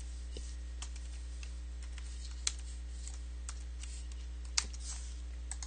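Scattered light clicks of computer keys and a mouse as someone works in CAD software, two of them sharper, about halfway through and near the end, over a steady low electrical hum.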